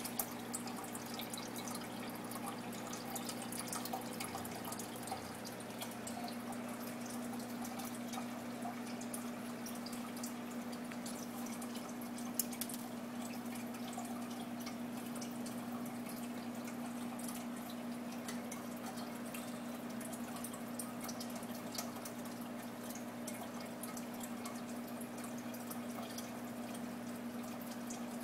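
Aquarium filter running in a turtle tank: a steady low motor hum under water trickling and dripping at the surface, with many small scattered drips and plinks.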